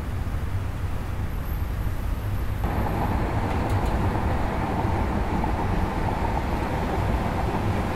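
Steady low rumble of traffic driving, then, about two and a half seconds in, a sudden step up to the louder road and engine noise of a Ford van driving, heard from inside the cabin.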